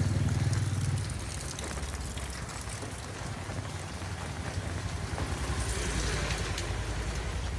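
Rain falling steadily, with scattered sharp drips and patters of drops on hard surfaces close by. A low rumble is loud at first and drops off about a second in.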